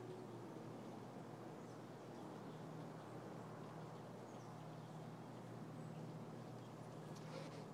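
Faint outdoor ambience: a low, steady hum and hiss with a few faint bird chirps, and a few soft clicks near the end.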